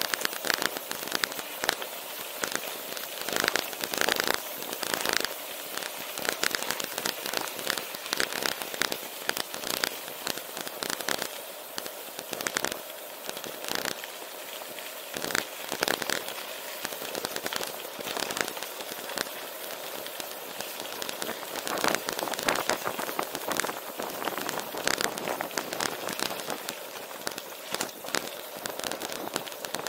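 Gravel bike rolling fast down a dirt road: a dense, continuous crackle of the tyres on loose gravel, with frequent sharper clicks and rattles from bumps.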